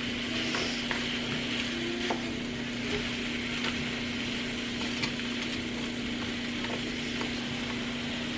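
Food sizzling steadily in a frying pan, with occasional light clicks of a utensil stirring it. A steady low hum runs underneath.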